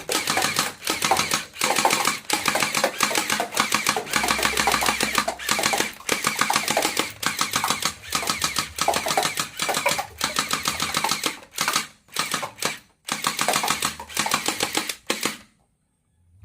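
Toy gun firing in repeated bursts of rapid rattling clicks. The firing stops abruptly about fifteen seconds in.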